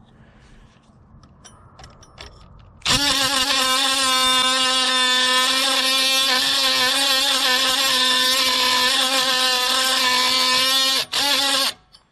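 Dewalt DCS356 brushless oscillating multi-tool running with an aftermarket Chinese blade pressed against a hardened grade 8 steel bolt: a steady high buzz that starts about three seconds in, runs for about eight seconds, pauses briefly and gives one short last burst. The blade is not cutting the hardened bolt.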